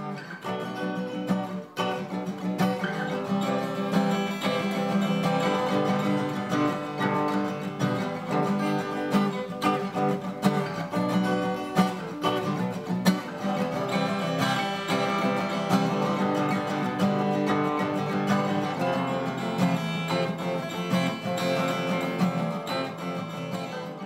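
Music: acoustic guitar strumming and picking.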